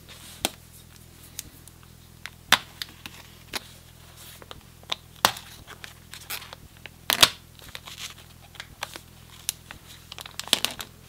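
Clear plastic grow bag of mushroom substrate crinkling and crackling under the hands as a scalpel cuts slits in it around the primordia; scattered sharp crackles, the loudest about seven seconds in, with a small cluster near the end.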